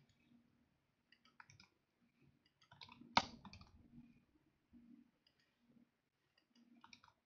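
Faint, scattered clicks of a computer mouse and keyboard, a few at a time, with one louder click about three seconds in.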